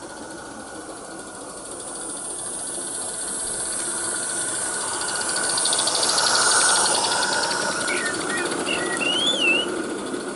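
A Roundhouse Lady Anne live steam garden-railway locomotive passing close by with its coaches. Its quick, even exhaust beats grow louder to a peak about six seconds in, then fade as the coaches go by. A bird chirps briefly near the end.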